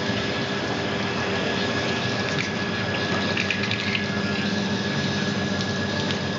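Sciaky resistance seam welding machine running as its copper wheel electrode rolls along a stainless steel sink's rim: a steady rushing hiss with a faint steady whine over it.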